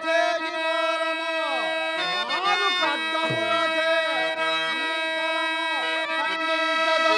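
Instrumental music: a steady reedy drone with a melody above it that bends and glides.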